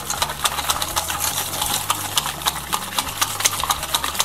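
Wire balloon whisk beating eggs and powdered milk in an aluminium bowl: a fast, even clicking of the wires against the metal bowl.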